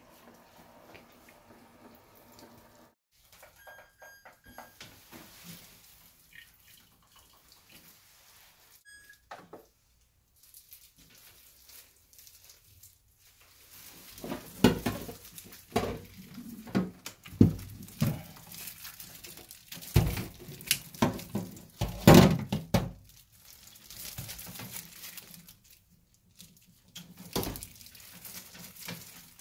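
Plastic water tubes and fittings being handled and knocked against a stainless steel sink, with some water splashing. It is fairly quiet at first, then becomes a run of irregular clattering knocks about halfway through.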